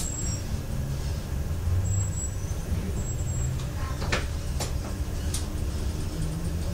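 Scania city bus's diesel engine running with a steady low rumble, heard from inside the passenger cabin as the bus moves slowly in traffic. A few short sharp clicks come in about four to five seconds in.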